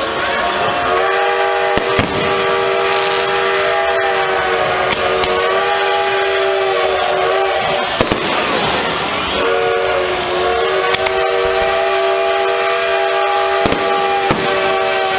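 A long, sustained multi-tone horn blast, held for about seven seconds, breaking off about eight seconds in and sounding again a second or so later. Fireworks go off over it with a few sharp bangs.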